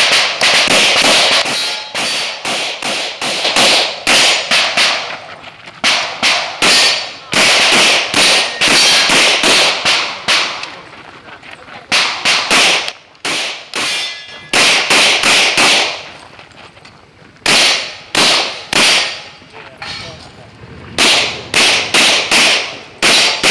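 Glock 24 pistol in .40 S&W fired rapidly, in quick strings of shots with short pauses between the strings.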